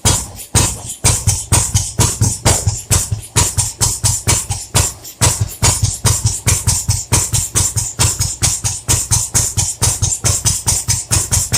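Ruggerini 550 cc diesel engine running, with a steady rhythmic diesel knock of about five beats a second.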